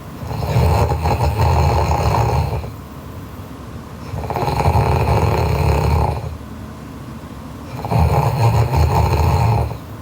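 A sleeping girl snoring loudly: three long snores, each about two seconds, coming every three to four seconds with quieter pauses between.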